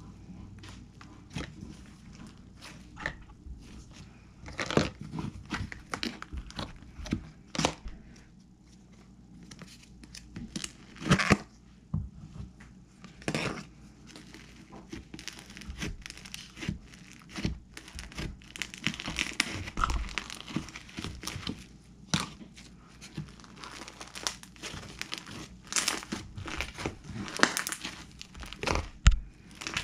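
Handmade slime being worked by hand, giving off irregular popping and crackling clicks that thicken into dense crackling about two-thirds of the way through.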